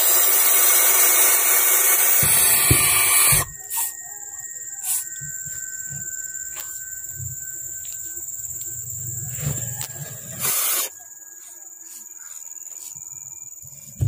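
Barn owl chicks hissing: one long, loud hiss that cuts off suddenly about three seconds in, then fainter sounds and a second short hiss after about ten seconds.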